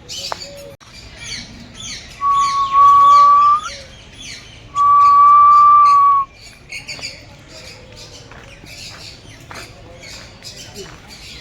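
A chorus of many birds chirping and squawking in quick, overlapping calls. Two loud, long, steady whistles, each about a second and a half, stand out about two and five seconds in.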